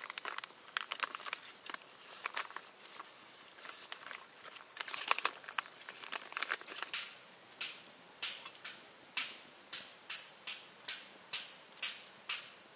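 Irregular clicks and light rustling, then a steady run of sharp knocks about twice a second through the second half.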